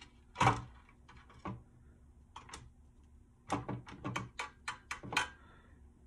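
Clicks and knocks of small piston and piston-ring parts being handled on a towel-covered workbench. There is one loud knock about half a second in, then a quick run of sharp clicks in the second half.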